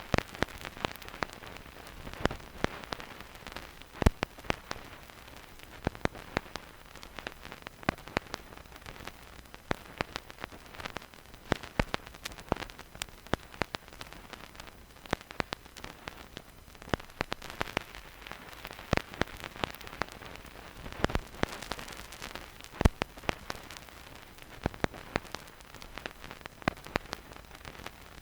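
Surface noise of a vinyl record with no music: the stylus in the groove gives a soft steady hiss dotted with irregular crackles and pops, a few louder pops standing out.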